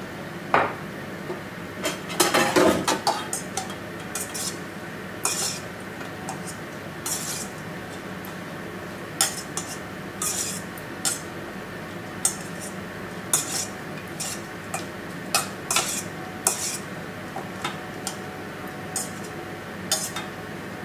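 Salad greens and carrot strips tossed by hand in a stainless steel mixing bowl: scattered light clinks and taps against the metal, with a denser clatter about two to three seconds in, over a steady low hum.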